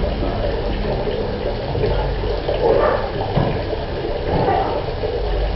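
Water pouring steadily from a tap into a bucket as it fills.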